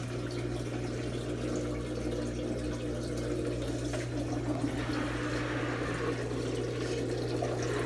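Kuppet twin-tub mini washing machine's built-in drain pump running with a steady hum while the wash water flows out through the drain hose.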